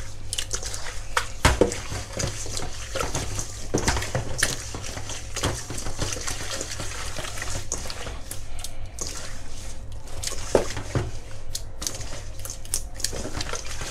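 Wet squelching and sloshing as raw shrimp are kneaded by hand in a slurry of tapioca starch, salt and water in a stainless steel bowl, with irregular small clicks of hands and shrimp against the metal. This scrub washes out the fishy smell and firms up the shrimp.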